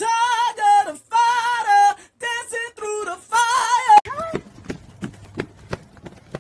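A man singing unaccompanied for about four seconds, pitched melodic phrases with short breaks between them. Then a quick series of running footsteps on the ground, about three steps a second, over a faint low hum.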